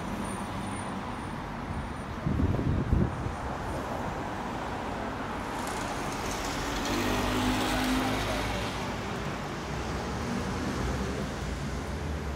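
City street traffic: a steady background of road noise. A short, loud low rumble comes about two seconds in, and a vehicle swells past and fades away around the middle.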